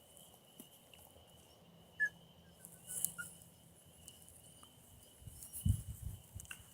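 Quiet outdoor background with a bird calling once about two seconds in, a short chirp followed by a quick run of fainter notes, over a steady thin high-pitched tone. A few low rustles or thumps come near the end.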